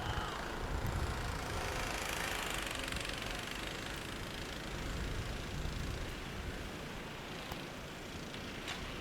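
Snowplow truck's engine running steadily, a low rumble that grows slightly fainter over the seconds.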